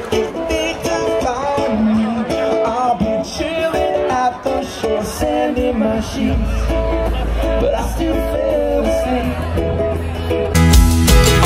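Upbeat guitar-led song: a melody line over guitar, with a deep bass coming in about six seconds in and the music growing louder and fuller with steady drum hits near the end.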